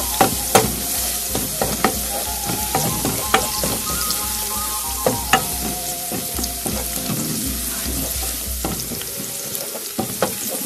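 Minced garlic sizzling as it fries in hot oil in a nonstick pan, stirred with a wooden spoon that clicks against the pan every so often. The garlic is browning, the first step of the sofrito.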